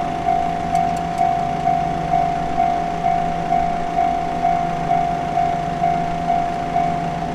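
Japanese level-crossing warning bell ringing with an even clang about twice a second, stopping near the end, over a steady low hum.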